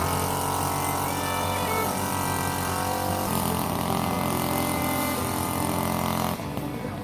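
An engine running steadily, its pitch shifting a little about three seconds in, then cutting off suddenly near the end.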